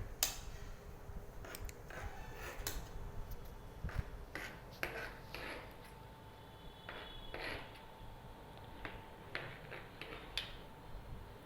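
Scattered light taps and clinks of a spoon against a kitchen vessel as chopped lemon pieces are put in for a lemon, garlic and honey mixture.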